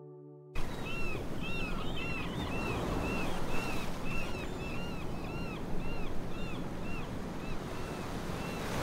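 Ocean surf washing steadily, with birds calling over and over in short rising-and-falling chirps. It begins suddenly about half a second in, as the music before it cuts off.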